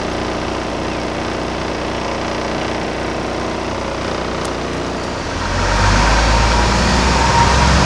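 Open-top double-decker tour bus heard from its upper deck: the diesel engine running steadily, then louder from about five and a half seconds in, with a low rumble of wind on the microphone and hiss as the bus gets going.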